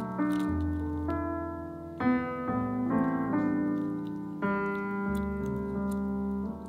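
Background keyboard music in a piano sound, a new chord struck about every second over held bass notes.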